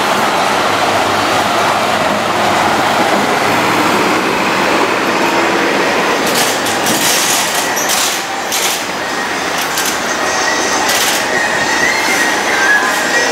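Loud city street noise: a steady traffic rumble and hiss, with a few short hissing bursts in the middle.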